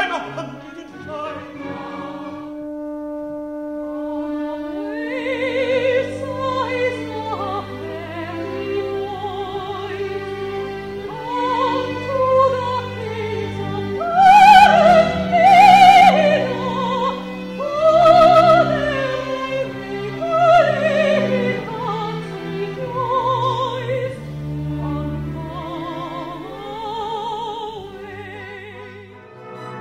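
Recorded light-opera number: a solo voice sings in operatic style with strong vibrato over an orchestral accompaniment. A held orchestral note opens it, and the voice comes in about five seconds later. The voice rises to its loudest, highest notes about halfway through and eases off near the end.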